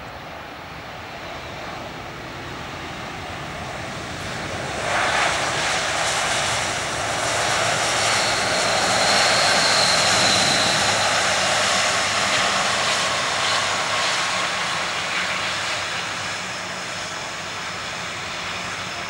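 Boeing 777 twin jet engines on the landing rollout. The engine noise builds gently, then rises suddenly and loudly about five seconds in as reverse thrust spools up, with a high whine at its peak. It then slowly dies away as the aircraft slows.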